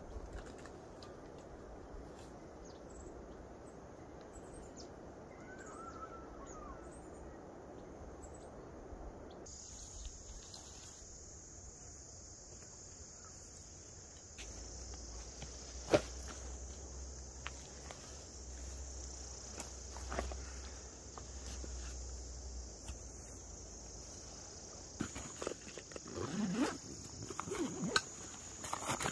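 Outdoor ambience with faint bird chirps at first, then a steady high-pitched insect drone that starts about a third of the way in and carries on. Near the end there is rustling and a zipper as a backpack is opened.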